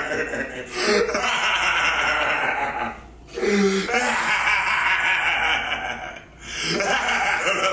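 A man letting out long, hoarse yells, three of them with short breaks between.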